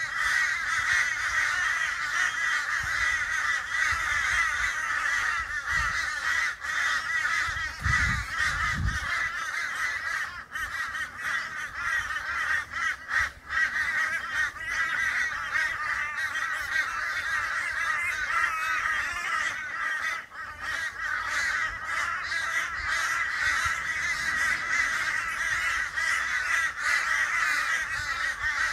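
A flock of crows cawing all at once, their calls overlapping into a continuous chorus with no break.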